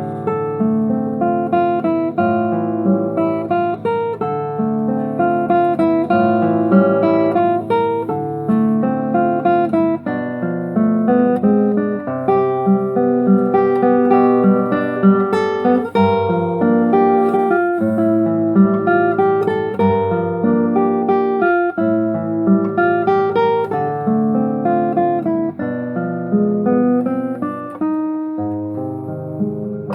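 Solo acoustic guitar playing continuously, plucked melody notes over a moving bass line.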